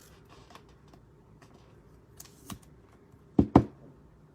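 Light clicks and taps of trading cards and packs being handled, then two sharp knocks in quick succession about three and a half seconds in.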